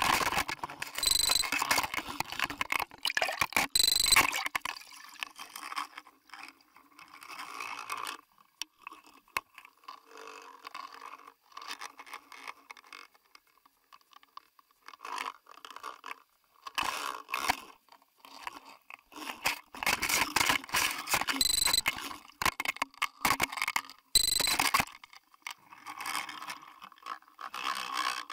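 Underwater scraping and rubbing on the housing of a Spydro fishing camera as a sturgeon brushes against it. The noise comes in irregular bursts, loud at the start and again later, with quieter gaps between and a few short high squeaks.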